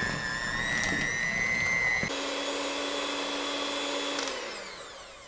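Electric hand mixer running steadily with a motor whine, its beaters mixing sticky molasses gingerbread batter until smooth. About two seconds in the sound changes to a lower-pitched hum. Near the end the motor winds down, its pitch falling as it is switched off.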